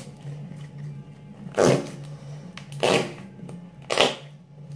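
White slime squeezed and folded in the hands, giving three sharp, clicky pops roughly a second apart as trapped air bursts out, over a faint steady low hum.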